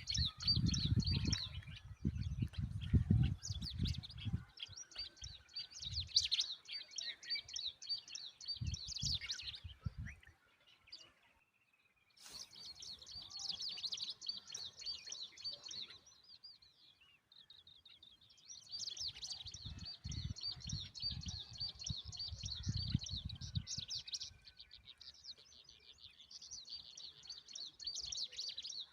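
Bird chirping in fast, high-pitched runs of calls, breaking off for a moment about eleven seconds in. Low rumbling noise comes and goes underneath, loudest in the first few seconds and again around twenty seconds in.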